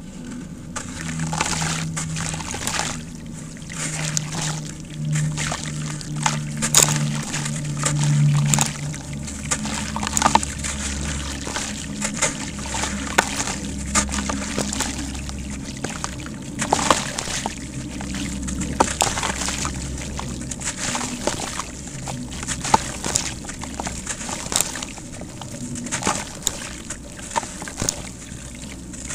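Dry sand-cement crumbling and dropping into muddy water, with many small wet crackles, splashes and sloshing.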